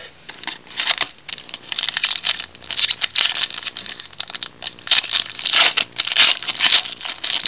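A trading-card pack wrapper being torn open and crinkled, with cards rustling as they are handled; irregular crackling, busiest in the second half.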